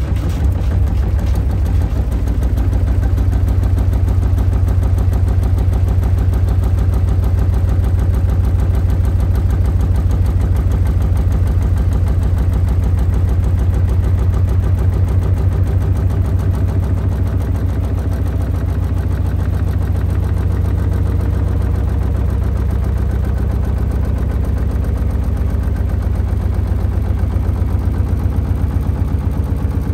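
Hotpoint Ariston Aqualtis washer dryer on spin with a single soaking-wet hoodie as the load: the drum pounds in a deep, fast, steady rhythm and the cabinet shakes from the unbalanced load.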